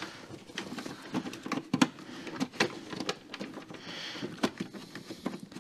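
Irregular light clicks and knocks of small car parts and hand tools being handled and set down, with a brief rustle about four seconds in.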